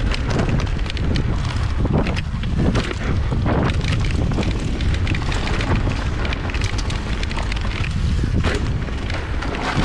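Wind buffeting a bike-mounted camera microphone while an e-bike rolls fast over a rough dirt trail, its tyres crunching and the bike rattling over bumps.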